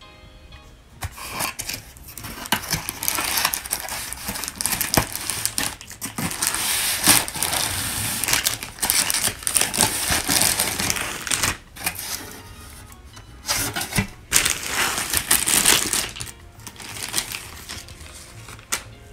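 Plastic packaging crinkling and rustling, with a cardboard box being handled, in irregular bursts as a wrapped item is slid out of its box and unwrapped. The noise pauses briefly partway through.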